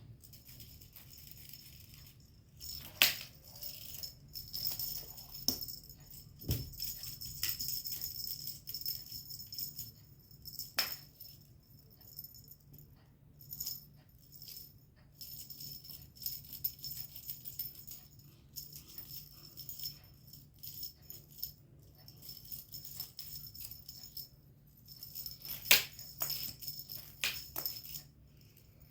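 Intermittent high-pitched jingling and rattling, like a small bell being shaken, with a few sharp taps; the loudest taps come about 3 seconds in and near the end.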